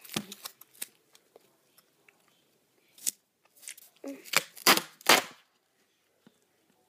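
Duct tape being pulled off the roll and torn: a few short, sharp rips and snaps, the loudest three coming close together about four to five seconds in.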